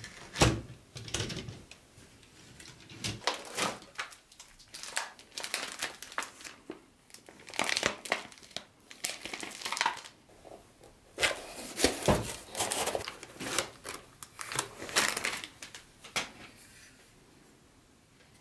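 Packaging crinkling and rustling as it is handled, in irregular bursts with a few sharper clicks.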